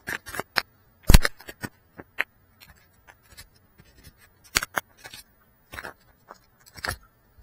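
Close-up handling noise as hands work on a GEPRC Cinelog 35 FPV drone right beside its onboard camera: irregular clicks, taps and light scrapes. The loudest is a knock about a second in.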